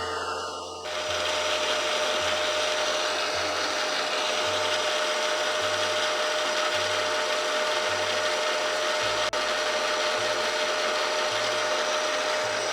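Milling machine running steadily while its cutter engraves the graduation lines of a vernier scale into metal; the sound steps up about a second in.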